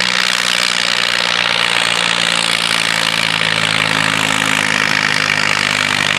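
International tractor's diesel engine running flat out under full load as it drags the weight-transfer sled down the pulling track. It holds a steady, loud pitch, with no rise or fall in revs.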